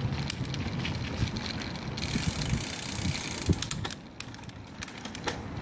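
Wind buffeting the microphone with an uneven low rumble and scattered clicks; a brighter hiss comes in for a couple of seconds in the middle, then it quietens.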